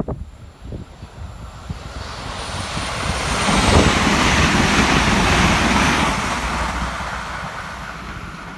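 Irish Rail 22000 Class InterCity Railcar (ICR) diesel multiple unit passing along the platform. Its rumble builds over about two seconds to a peak around four seconds in, then fades as it moves away, with a faint high whine sliding down in pitch as it approaches.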